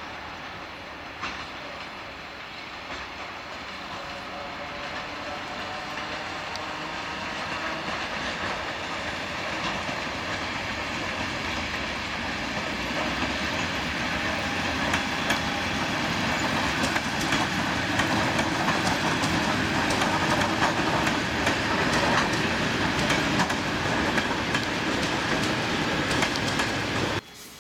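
ET2M electric multiple unit passing, its wheels clattering over the rail joints, growing steadily louder as the cars go by. The sound cuts off suddenly near the end.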